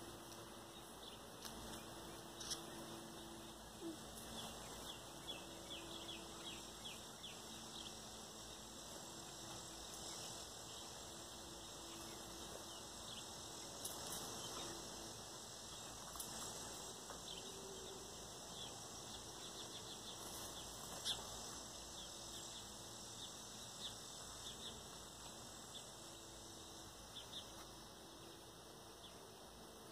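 Sparrows chirping faintly in a tree: many short, high chirps, scattered and overlapping.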